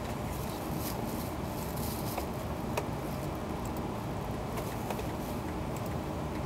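Steady cabin hum of an E2 series Shinkansen standing at a station platform, with scattered faint clicks and taps and one sharper click about three seconds in.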